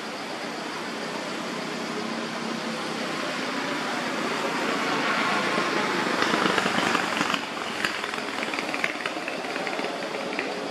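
A motor vehicle's engine running, growing louder to a peak about seven seconds in and then dropping off sharply.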